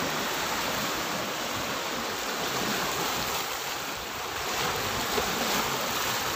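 Small waves washing in and breaking on a pebble and coral-rubble shore, a steady rush that swells a little past the middle.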